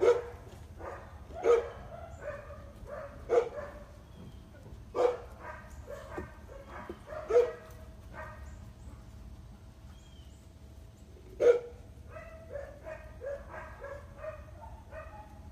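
A dog barking: loud single barks every one to two seconds, then a run of softer, quicker barks near the end.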